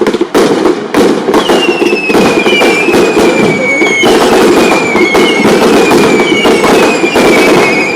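Fireworks going off in a dense barrage: rapid crackling and bangs over a steady rushing hiss, with a string of high whistles, each falling in pitch, coming about once a second from about a second and a half in.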